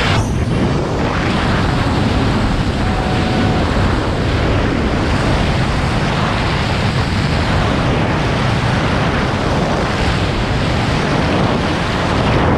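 Tandem skydive freefall: rushing wind blasting across the camera's microphone, a loud, steady roar with no break.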